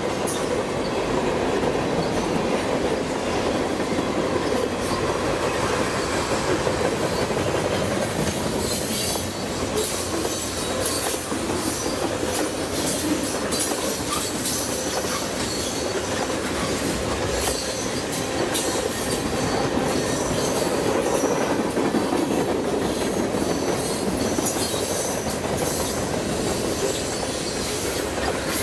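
Freight train tank cars rolling past, a steady rumble of steel wheels on rail. From about eight seconds in, many short, high-pitched clicks and squeals are added.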